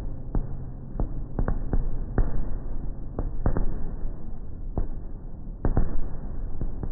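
Fireworks going off: a dozen or so irregular sharp bangs, some coming in quick clusters, over a steady low rumble.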